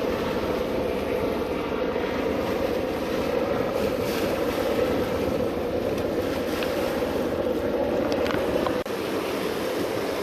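Waves washing against the rocks, with wind buffeting the microphone, steady throughout. The sound drops out sharply for a moment about nine seconds in.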